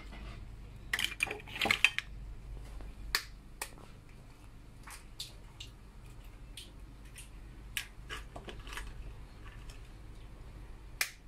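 Eggs being cracked against the rim of a glass mixing bowl: sharp taps and shell cracks, with a louder cluster of cracking in the first two seconds and then scattered single clicks, and one sharp tap near the end.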